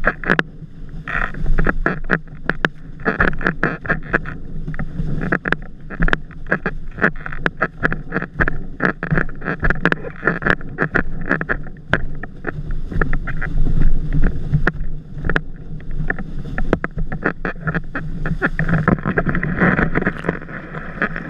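A 116-litre freestyle/wave windsurf board planing over choppy water, heard close up: wind buffets the microphone and the hull slaps the chop in quick, irregular knocks. It ends in a heavy burst of spray and splashing as the rig goes over.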